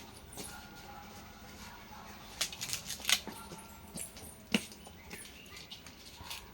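Goats moving in their pen: a handful of sharp hoof knocks, bunched between about two and five seconds in, the loudest near the end of that run.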